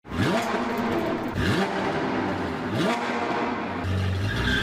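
An engine revving, climbing in pitch three times, each rise about a second and a half after the last.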